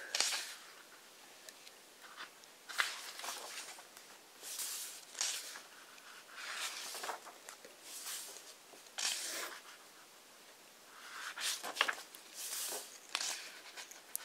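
Pages of a large hardcover book being turned one after another by hand: a series of short papery swishes and rustles, about a dozen in all, roughly every second or two, with light flicks of paper between them.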